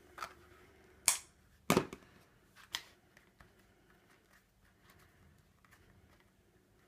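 Scissors snipping off the thread ends of a saddle-stitched leather pouch: a few short, sharp snips in the first three seconds, followed by faint rustling of the leather being handled.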